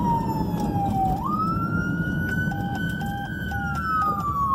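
Emergency vehicle siren in wail mode, heard from inside the cab of the responding fire department vehicle: the tone slides slowly down, jumps back up about a second in, holds high, then slides down again. Engine and road rumble underneath, and four short, evenly spaced beeps in the second half.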